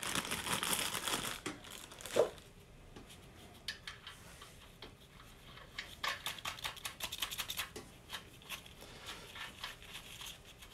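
A plastic packet rustling and crinkling in gloved hands, with a single knock about two seconds in. Then a run of light metallic clicks as nuts are threaded by hand onto the main bearing cap studs of a crankshaft in an engine block.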